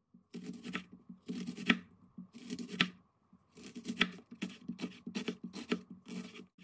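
Chef's knife slicing an onion into rings on a wooden cutting board: repeated crisp cuts, each ending with a sharp tap of the blade on the board.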